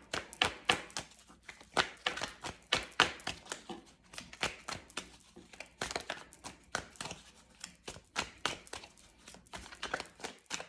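Tarot deck being shuffled by hand: an irregular run of sharp taps and slaps of the cards, several a second.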